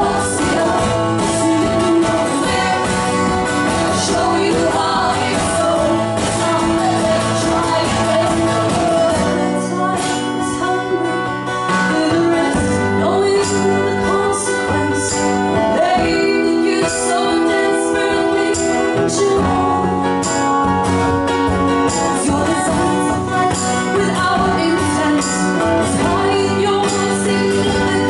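A live band playing a song, with female vocals over strummed guitar.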